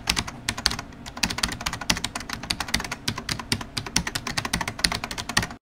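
Computer keyboard typing sound effect: rapid, irregular keystroke clicks, several a second, that stop abruptly near the end.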